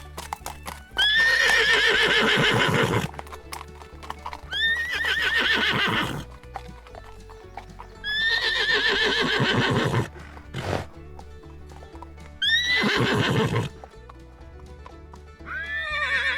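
A horse neighing again and again: four loud whinnies of one to two seconds each, with a quavering, shaking pitch that drops at the end, and a fifth beginning near the end. Hooves clip-clop in between, over background music.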